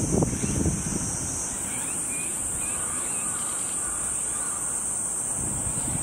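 Cicadas singing in a steady high-pitched drone, with a few faint short chirps over it in the first half and wind rumbling on the microphone near the start and the end.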